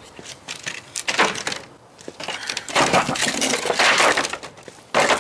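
Wooden pallets being handled and laid onto a stack. Wood knocks once about a second in, then clatters and scrapes for a couple of seconds as a pallet goes down flat on the others.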